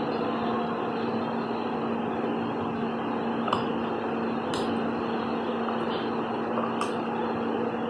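A steady machine hum with a constant low tone, broken by a few sharp clicks in the second half. The clicks are a puppy's teeth gnawing on a knotted chew bone.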